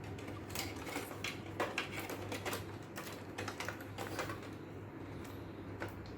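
Irregular small clicks and rattles of a SATA cable and plastic parts being handled and pushed into place inside a desktop PC case, over a steady low hum.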